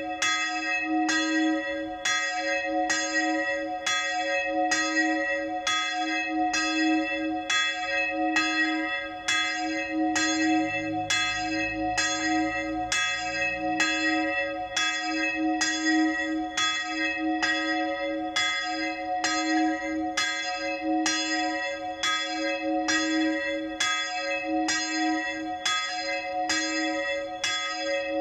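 A single church bell swinging and tolling steadily for the midday ringing, about one stroke a second, each strike ringing on into the next with the same low hum.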